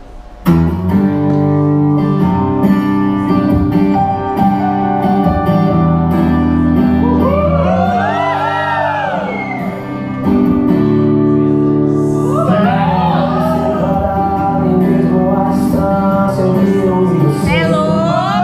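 Sertanejo song starting abruptly: a steady guitar-backed accompaniment, with a sung vocal line coming in about seven seconds in and again after about twelve seconds.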